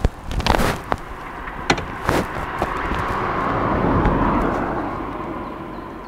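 Harley-Davidson Breakout's Milwaukee-Eight V-twin, fitted with an S&S 475 cam and Vance & Hines exhaust with quiet baffles, on the move: several sharp pops in the first two seconds, then the sound swells to its loudest about four seconds in and eases off.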